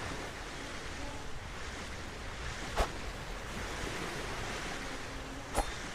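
Steady hiss with two short, sharp knocks, one near the middle and one near the end. The second knock leaves a faint high ring.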